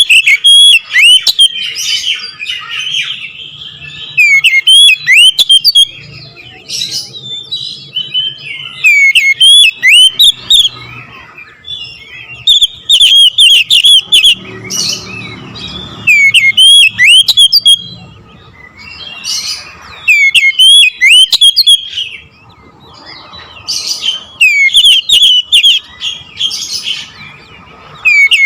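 Oriental magpie-robin (kacer) singing loud bursts of rapid, sweeping whistled notes with sharp high notes. A burst comes every three to four seconds, with quieter twittering between.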